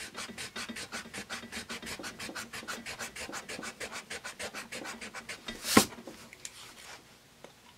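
Pencil's attached pink eraser rubbing rapidly back and forth over graphite on paper, about six strokes a second. It stops about five and a half seconds in, followed by a single louder brush or knock.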